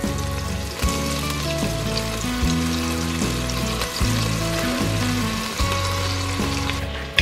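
Diced raw chicken sizzling and frying in melted butter in an enamelled pot as the pieces are dropped in, a steady hiss, under background music with notes changing about once a second.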